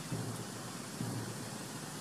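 Steady outdoor background noise, an even hiss with a low rumble, with two faint knocks about a second apart.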